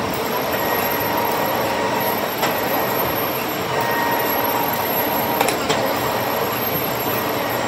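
Machine-shop machinery running steadily, a dense mechanical noise with a faint steady whine and a few sharp clicks.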